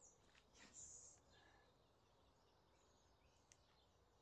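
Near silence: quiet lakeside ambience with a few faint, short bird chirps.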